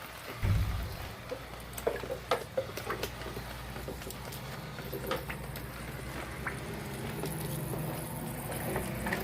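A motor starts humming about half a second in and runs steadily, with scattered clicks and knocks of parts being handled.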